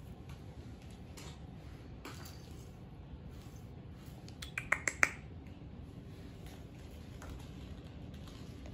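Kittens playing on a hardwood floor: a quick run of five or six sharp clicks about four and a half seconds in, over faint steady background noise.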